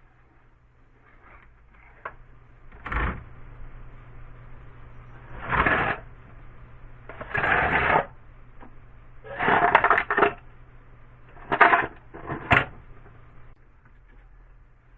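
Solid-core electrical cable being pulled through by hand: about half a dozen short, noisy rasps at irregular spacing, one per tug. A faint steady hum sits underneath.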